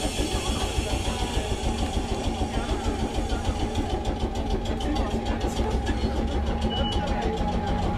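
A vehicle idling: a steady mechanical hum with a quick, even pulse.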